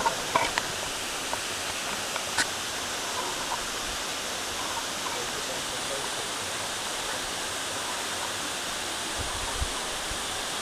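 Waterfall rushing steadily, with a few short clicks in the first few seconds.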